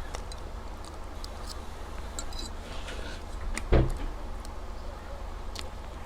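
Mukbang eating sounds: scattered small clicks and taps of food and utensils, with one heavy thump a little past the middle, over a low steady hum.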